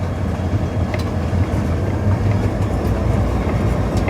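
Cab interior of an EMD SD40-2 diesel locomotive, its 16-cylinder EMD 645 two-stroke engine running steadily in throttle notch 2 as a low drone, with a few light clicks from the cab and rails.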